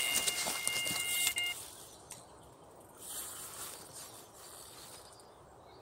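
Electronic carp bite alarm sounding one continuous high tone, signalling a run: a carp taking line from the rod. It stops about a second and a half in, leaving a faint outdoor hiss.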